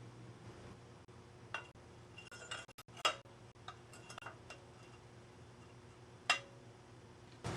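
Scattered light metallic clinks and taps of small metal parts being handled: a few about a second and a half in, a quick run around two to three seconds, more near four seconds and a single sharper clink past six seconds. Some clinks have a brief ringing tone.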